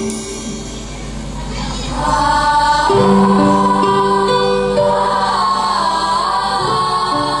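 Choir singing a melody over held low accompanying notes, swelling in about two seconds in after a softer stretch.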